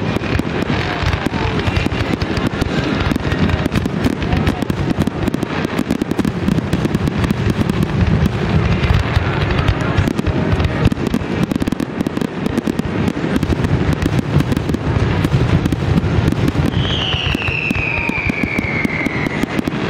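Fireworks finale: a dense, continuous run of bangs and crackles with no pause, and a single falling whistle near the end.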